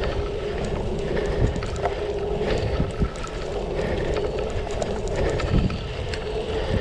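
Cyclocross bike riding fast over a rutted dirt track: tyres rolling on the dirt, wind buffeting the microphone, and scattered knocks and rattles from the bike over bumps, with a steady hum running through.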